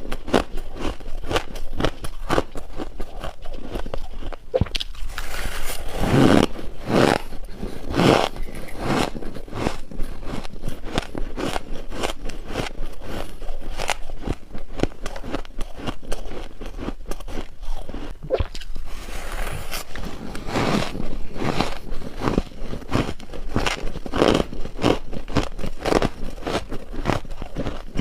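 Close-up biting and crunching of hard freezer ice, a dense run of sharp crackling crunches with louder bite clusters now and then.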